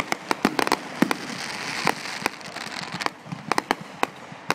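Fireworks going off: a rapid, irregular string of sharp pops and bangs.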